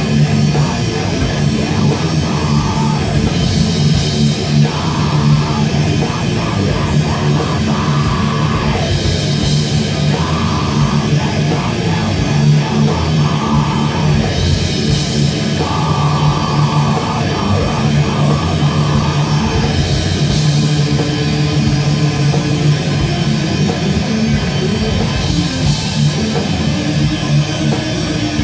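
Death metal band playing live: loud distorted electric guitars, bass and drum kit.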